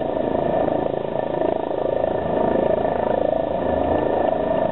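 Light helicopter running on the ground at idle, with a steady whine over a dense rushing noise from the engine and rotor.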